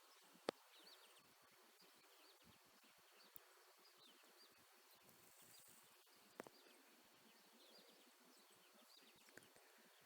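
Faint outdoor quiet with small birds chirping: many short, high chirps scattered throughout. There is a sharp click about half a second in and another around six seconds in.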